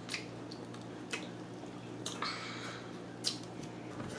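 A cooked lobster tail being cracked and pulled open by hand: a few sharp shell clicks and a short wet squishing, with quiet between.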